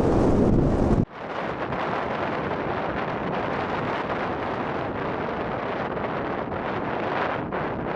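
Wind buffeting the microphone with a heavy low rumble for about a second. The sound then cuts off suddenly and gives way to a steady rushing wind noise.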